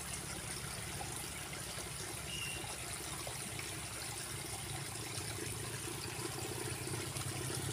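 Steady trickle of flowing water in a shallow ditch, with a brief faint high chirp about two seconds in.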